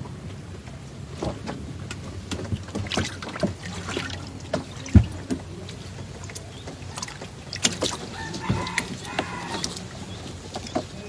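Knocks and clatter on a wooden boat's bow as a fishing line is hauled in by hand, with one heavy thump about five seconds in, over a low steady hum.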